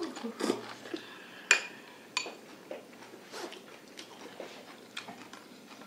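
Tableware clinking: two sharp ringing clinks, about a second and a half in and again just after two seconds, among quieter clatter of utensils against bowls.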